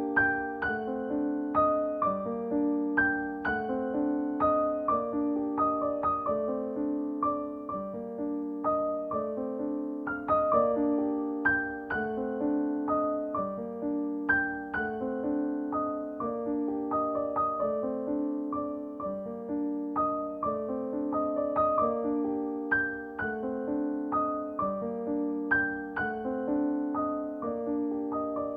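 Background piano music: a gentle repeating pattern of plucked-sounding notes over held low notes.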